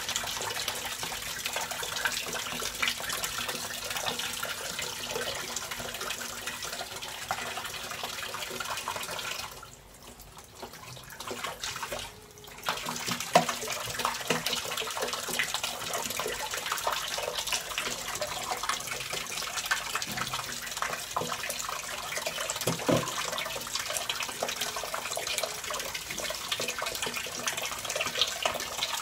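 Water pouring from an open wall tap and splashing on a tiled floor, with wet splashes as a soaked dog's coat is scrubbed. The rush of water drops quieter for a few seconds near the middle, then comes back.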